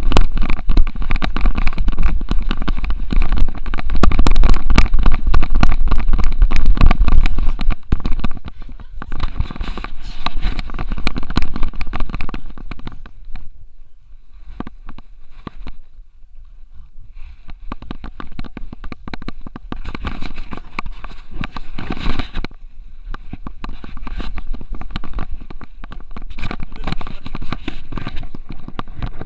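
Rumbling, crackling handling noise from a Xiaomi Yi action camera strapped to a French bulldog's harness, the camera and harness rubbing and knocking as the dog moves. It is loudest in the first eight seconds or so, then quieter.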